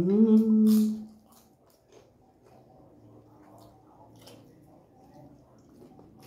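A loud held vocal sound of about a second at the start, a steady hum-like tone, followed by faint chewing and small mouth and hand clicks of people eating by hand.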